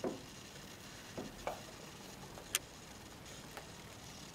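Quiet handling noises as clear plastic hose is worked onto a metal hose spigot: a few soft knocks and one sharp click about halfway through.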